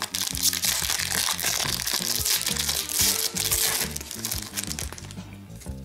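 Foil wrapper of an Upper Deck Series 2 hockey card pack crinkling as it is torn open and peeled off the cards, dying away about five seconds in. Background music with a steady bass line runs underneath.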